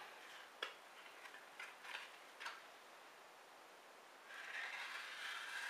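Santoku kitchen knife slicing through a sheet of paper: a soft, steady rustling hiss for about a second and a half near the end, after a few light clicks of the paper and blade being handled. The cut is clean, the blade razor-sharp.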